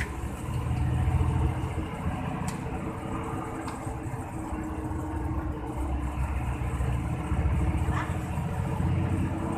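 Hino AK8 bus's diesel engine running, a low drone that swells louder for a few seconds and eases off again.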